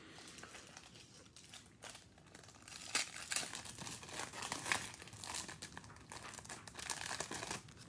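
Cellophane wrapper of a Panini Prizm cello pack of trading cards crinkling and crackling as gloved hands work it open, with the sharpest crackles about three and five seconds in.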